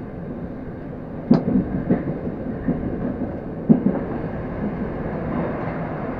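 Metro train running under power out of a station into a tunnel: a steady rumble of wheels on rail, with a few sharp clacks from the wheels on the track, the loudest about a second in and again near four seconds.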